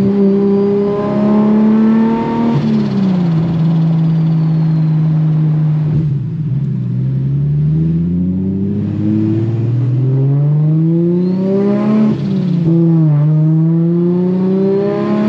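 Nissan Skyline R34 GT-R's turbocharged RB26 straight-six heard from inside the cabin, pulling through the gears. The revs climb and drop back sharply several times: once about two and a half seconds in, again around six and twelve seconds, then climb once more near the end.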